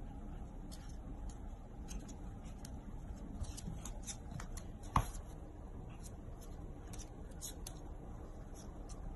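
A small dog and a cat scuffling on a wooden floor: scattered light clicks and scrapes of paws and claws, with one sharper knock about five seconds in, over a low steady hum.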